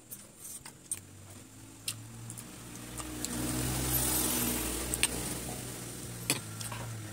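A motor vehicle passing by: an engine rumble that swells over a couple of seconds, peaks in the middle and fades away again. A few sharp clicks of forks on the plate sound over it.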